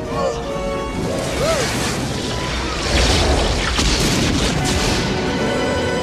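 Dramatic film score with booming crash sound effects layered over it; a heavy low boom hits about three seconds in.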